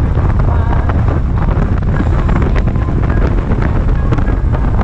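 Wind rushing over the microphone of a camera mounted on a moving Harley-Davidson Ultra Limited, with the motorcycle's V-twin engine running steadily underneath.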